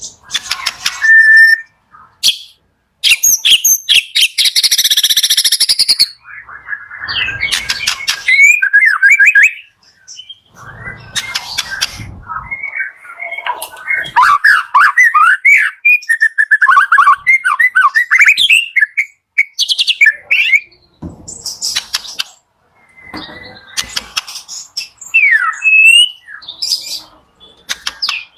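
White-rumped shama (murai batu) singing loudly in varied phrases: quick runs of repeated and gliding whistled notes and some harsher chattering, broken by short pauses.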